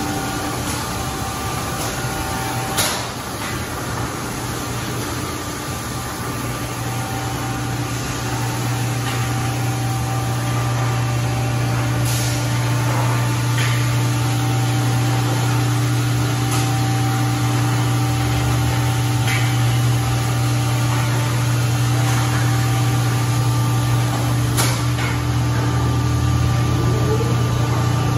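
Car wash tunnel dryer blowers and tunnel machinery running: a steady low hum with a few held tones over a rush of air, slowly growing louder, with a handful of sharp clicks.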